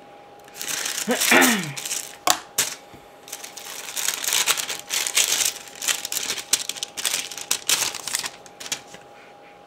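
Vellum paper envelope being opened and handled by hand: a run of sharp paper crackles and rustles. A brief voiced sound comes about a second in.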